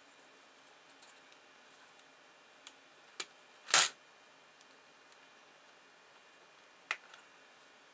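Small screwdriver prying at a plastic spring-mounted foot on the underside of a Duronic KS760 digital kitchen scale: four sharp plastic clicks, the loudest a little under four seconds in.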